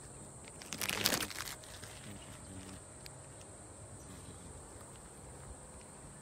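A steady high-pitched insect buzz, with a brief loud rush of rustling noise about a second in.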